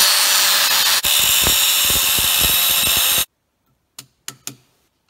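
Angle grinder with a cut-off disc cutting into the outer lip of a turbocharger wheel, a loud grinding hiss for about three seconds with a brief break about a second in, then stopping abruptly. A few light clicks follow.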